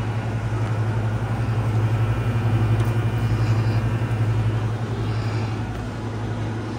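Cotton candy vending machine running with a steady low hum that flutters rapidly.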